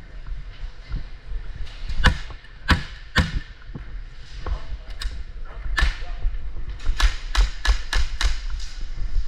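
Gas blowback airsoft pistol firing: several spaced shots, then a quicker string of about six shots near the end.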